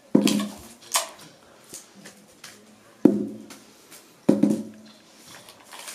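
Large cardboard firework tube being handled and wrapped: four or five sharp, hollow knocks and scrapes as the tube is set down and turned against the floor and the tape dispenser, with quiet gaps between.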